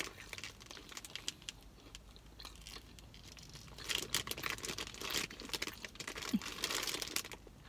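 Crinkling of a Flamin' Hot Cheetos chip bag used as a wrapper around a burrito, in several short bursts of crackle as it is handled, mixed with chewing.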